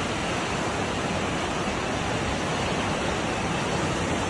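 Fast-flowing floodwater rushing steadily, a constant loud wash of water.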